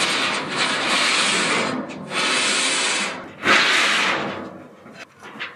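A chain hoist being handled and hung up: rubbing, scraping noise in three long stretches, the loudest starting about three and a half seconds in.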